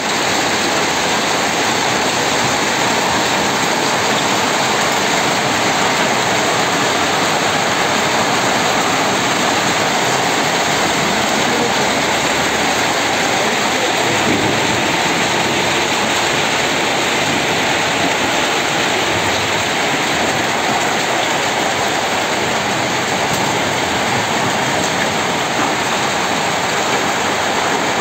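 Hail pelting down onto a road and ground already covered in hailstones: a dense, steady rush of countless small impacts.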